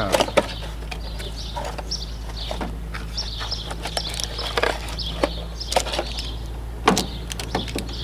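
Cardboard packaging being handled as a lock kit's box is opened and its cardboard insert pulled out: rustling and scraping of cardboard with scattered clicks and knocks of the packaged parts, the sharpest near the end. A low hum runs underneath and drops away a little over halfway through.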